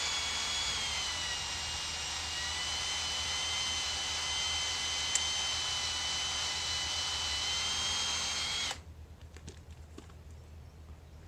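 Cordless drill boring a pilot hole through a steel trailer flange. The motor runs with a steady whine that dips slightly in pitch under load about a second in, then stops suddenly near the end, followed by a few light clicks.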